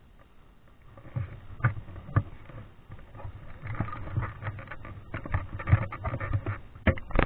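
Irregular knocks, bumps and rustling close to the microphone, as a GoPro camera is handled and moved, with a few sharper knocks near the end.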